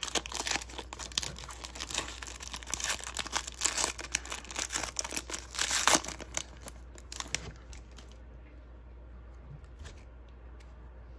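Foil wrapper of an Upper Deck Synergy hockey card pack being torn open and crinkled by hand: dense crackling for about seven seconds, then only faint scattered rustles as the cards are slid out.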